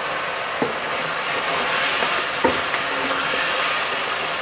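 Diced potatoes and onion with spice paste frying in oil in a metal wok, a steady sizzle while they are stirred with a spatula, which knocks against the pan twice.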